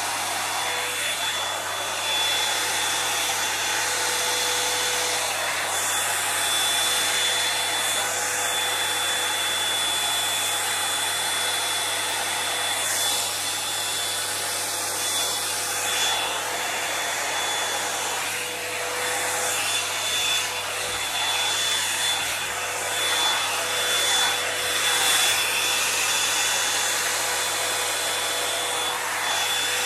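Toni & Guy hot-air volumiser brush running steadily: a constant rush of blown air with a thin high motor whine. The sound swells and dips a little as the brush is pulled through long hair.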